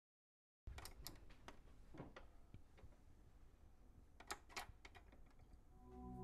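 Near silence broken by a few faint, sharp clicks and small knocks, with a closer pair about four seconds in. Soft, sustained ambient music tones begin to fade in right at the end.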